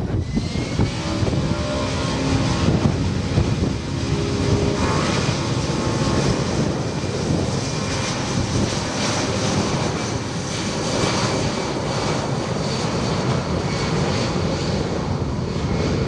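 Airplane engines running loud and steady, a dense rushing noise with a few faint whining tones over it.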